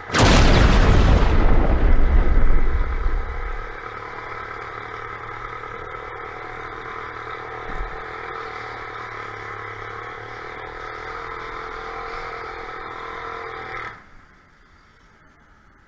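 A sudden loud thunderclap that rumbles away over about three seconds, laid over the steady drone of a motorized bicycle's small engine. The engine drone cuts off sharply near the end.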